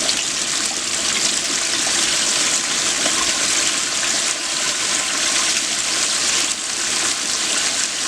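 Flour-dredged chicken deep-frying in hot peanut oil: a steady, loud bubbling sizzle with fine crackling.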